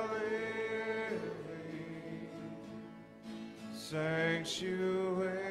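Two men singing a slow worship chorus with long held notes, accompanied by acoustic guitars. A new sung phrase starts about four seconds in.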